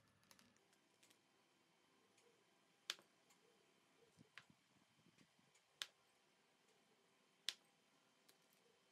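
Near silence with three sharp clicks a couple of seconds apart and a few fainter ticks between them.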